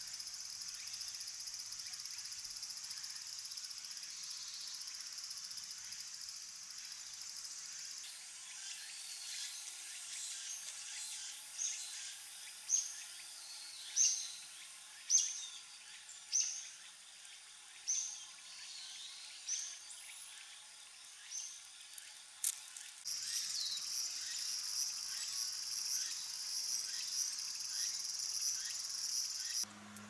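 Steady high-pitched drone of insects. In the middle it gives way to a run of short, sharp high notes, about one a second, before the steady insect drone returns.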